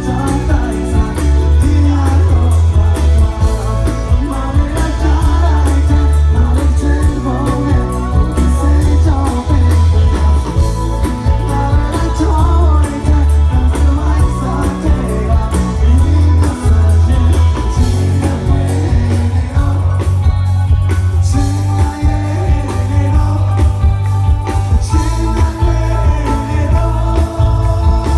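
Live rock band playing loud, electric guitars and drums with a heavy low end, and a voice singing over them.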